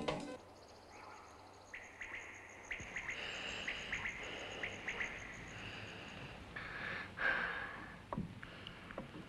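Small birds chirping over a high, pulsing insect trill, a summer-field ambience. The trill stops about two thirds of the way in, and a brief rustle follows.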